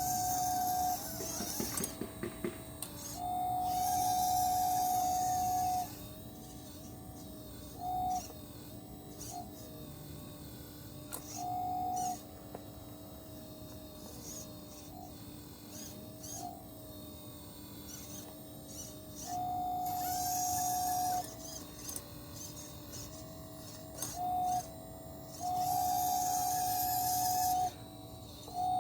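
Small electric motors of a 1/12-scale RC excavator whining in repeated bursts of one to three seconds as it is worked, with a lower, quieter whir between bursts over a steady hum.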